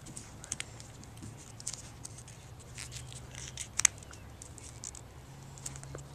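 Small sheet of paper being folded and creased by hand: scattered crisp rustles and crinkles, a sharper pair of snaps a little before the four-second mark, over a faint steady low hum.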